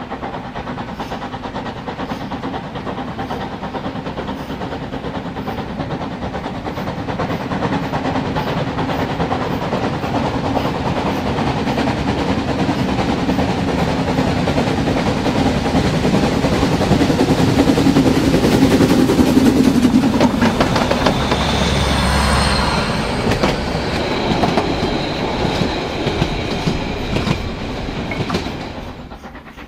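Model railway train running along the track, heard from a camera riding on one of its wagons: a steady hum with wheel-on-rail rumble that grows louder towards the middle, a faint high squeal after the middle, and a drop near the end.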